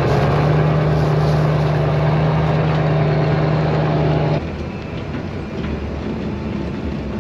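A heavy vehicle engine runs steadily with a low, even hum. About four seconds in it drops to a quieter rumble.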